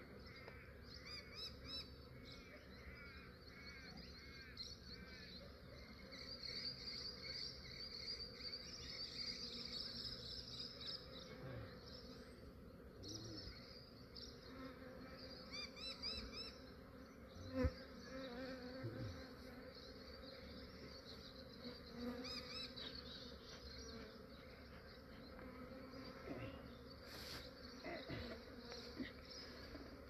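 A honey bee swarm buzzing, a steady hum of many bees, with a single sharp knock a little past halfway.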